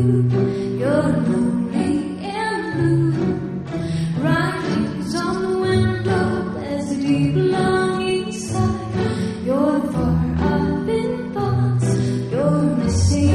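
A woman singing into a handheld microphone over instrumental accompaniment with sustained low notes underneath.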